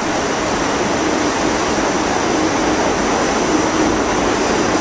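Steady rushing rumble of a New York City subway car running, heard from inside the car, getting a little louder early on and then holding level.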